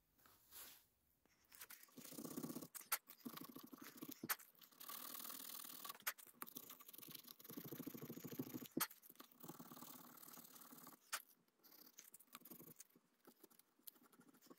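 Sandpaper rubbed back and forth by hand on an axe handle, smoothing a small bored-out groove: several quiet bursts of fast scratchy strokes with a few sharp clicks, dying away about eleven seconds in.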